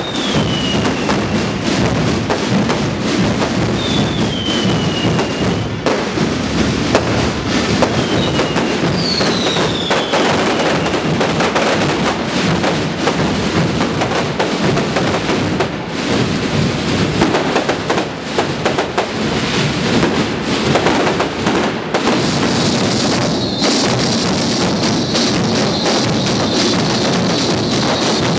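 Massed bombos and tambores, the bass drums and snare drums of Holy Week drum brotherhoods, beating a dense, continuous roll together with fireworks going off overhead. Several short falling whistles sound in the first ten seconds, and a steady high whistle comes in about two-thirds of the way through.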